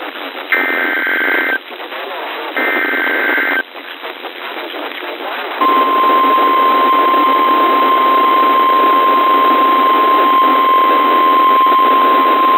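NOAA Weather Radio emergency alert over radio static: two buzzing SAME data bursts of the alert header, each about a second long and a second apart. Then, from about five and a half seconds in, the steady single-pitch 1050 Hz warning alarm tone, which announces a National Weather Service severe thunderstorm warning.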